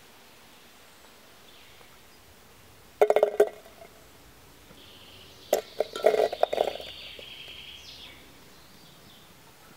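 Wild strawberries dropped by the handful into an empty aluminium kettle: quick rattling clinks on the thin metal, once about three seconds in and again, longer, from about five and a half to seven seconds.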